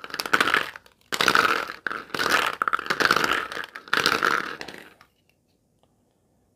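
Small hollow plastic capsule eggs rattling and scraping against each other and the bowl as hands stir through them, in loud irregular clattering bursts that stop about five seconds in.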